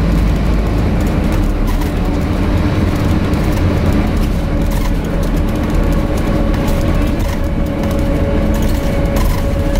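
On board a Scania N250UD Enviro 400 MMC double-decker bus under way: steady engine and road rumble, with the constant hum of the air-conditioning unit over it, loud enough to mask most of the engine.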